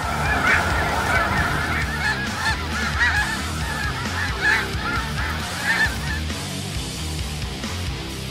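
A flock of snow geese calling: a dense chorus of overlapping high honks that thins out after about six seconds.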